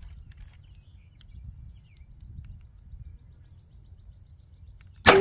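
A single .38 Special +P revolver shot near the end, the loudest sound, followed at once by a metallic ringing. Before it, a high, rapidly repeated chirping in the background.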